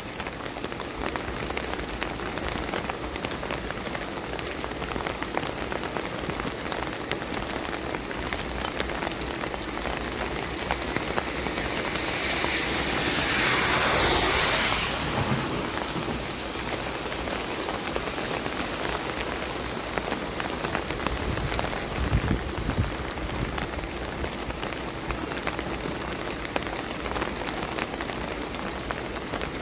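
Steady rain falling. About halfway through, a louder rushing noise swells up and fades away over a few seconds.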